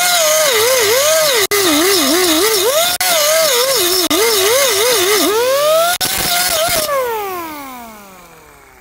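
Grinder cutting into the steel spot welds of a car's rusty sill: a loud whine whose pitch repeatedly sags and recovers as the disc is pressed into the metal, with a harsh grinding noise. About seven seconds in it is switched off and winds down in a long falling whine.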